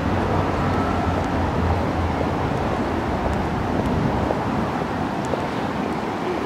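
Steady city street traffic noise, an even hum of passing vehicles, with a few faint clicks over it.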